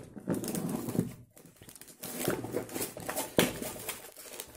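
Cardboard shipping box being torn and pulled open by hand: irregular tearing, crinkling and scraping of the packaging, with a few sharper taps.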